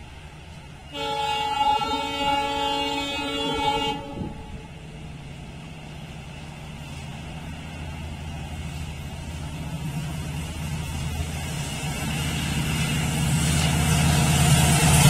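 An approaching WDP4D diesel-electric locomotive sounds its horn once, a chord of several tones held for about three seconds. Its engine and train rumble then grows steadily louder as it nears.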